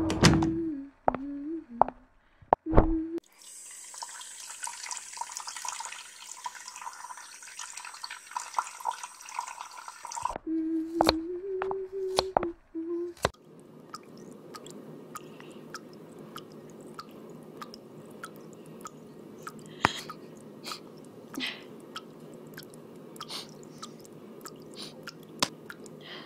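Water dripping irregularly in a small bathroom over a steady hiss, with a short steady tone sounding twice.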